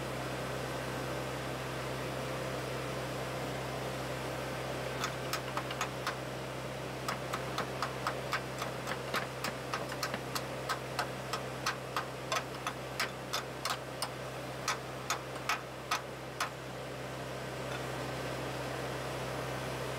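Sharp metal-on-metal taps, about two a second for some ten seconds starting around five seconds in: a chipping hammer knocking slag off a fresh weld. A steady hum and hiss runs underneath.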